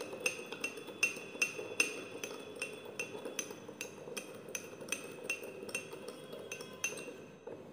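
Metal teaspoon stirring sugar and water in a ceramic teacup, clinking against the cup's side about three times a second with a short ring after each clink. The clinking fades and stops near the end.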